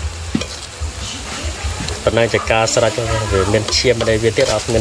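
Metal spatula scraping and stirring red ant eggs and cauliflower in a steel wok as they sizzle, with scattered clicks of the spatula against the pan.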